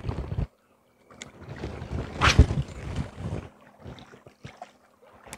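A fishing rod being cast: one loud whoosh of the rod swing about two seconds in.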